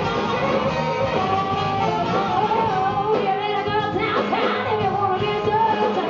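A live soul-rock band playing, with a horn section of saxophones and trombone over drums, bass and electric guitar, loud and continuous.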